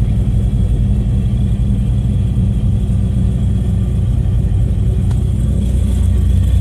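Turbocharged car engine idling, heard from inside the cabin as a steady low rumble that grows slightly louder near the end.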